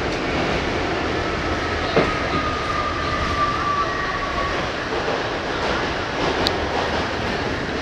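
An R68 New York City Subway car running, heard from inside the car: a steady rumble with rail clatter. There is a sharp knock about two seconds in, and a thin high whine that falls slightly in pitch over the next few seconds.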